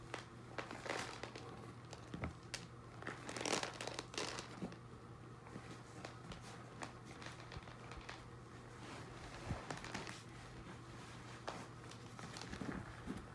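Cloth vacuum cleaner bag being shaken and squeezed out by hand over a plastic tub: irregular rustling and crinkling of the dusty fabric and debris, loudest about three and a half seconds in.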